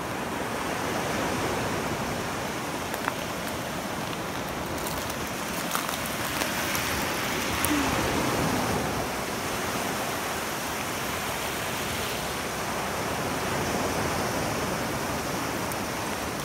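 Small waves washing up over a bed of shells at the water's edge: a steady wash of water that swells a little about halfway through, with a few faint ticks.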